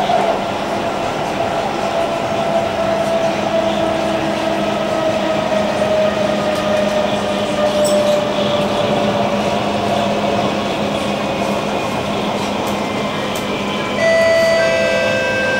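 SMRT Kawasaki C151 train heard from inside the car while running, with wheel-on-rail noise and the Toshiba PMSM traction motor's whine slowly falling in pitch. About a second before the end, a chime sounds inside the car, ahead of an announcement.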